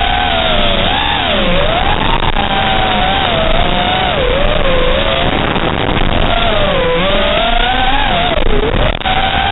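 Five-inch FPV racing quad's T-Motor 2207.5 1750KV brushless motors on a 6S battery whining at high speed. The pitch keeps rising and falling with the throttle as the quad weaves through the course.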